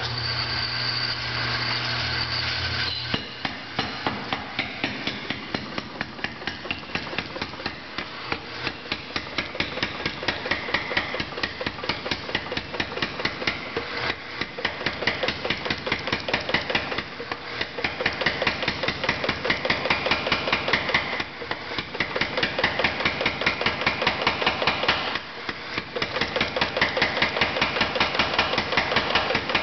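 A 25 lb Little Giant New Style mechanical power hammer drawing down a hot bar of 1-inch round iron. The machine first runs with a steady hum for about three seconds. Then the ram strikes the hot iron in a rapid, steady rhythm, with a few brief breaks.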